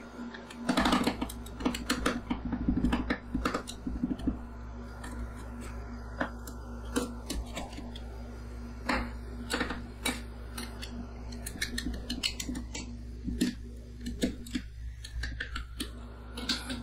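Two metal spatulas chopping and scraping a crushed-cookie and cream mixture on the cold steel plate of a rolled ice cream pan. A quick run of clinking taps comes in the first few seconds, then scattered single taps, over a steady low hum.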